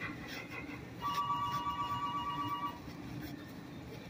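A single steady high-pitched tone, held for just under two seconds, starting about a second in.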